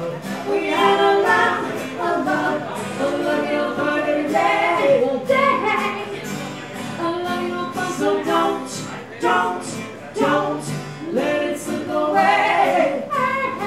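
Live acoustic duo performing a song: a woman sings lead over two strummed acoustic guitars.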